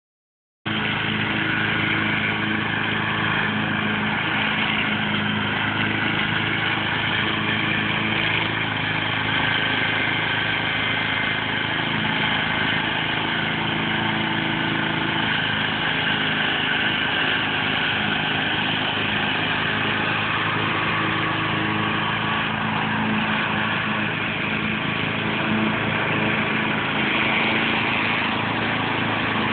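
Walk-behind gasoline lawn mower engine running steadily as the mower is pushed across grass, mowing.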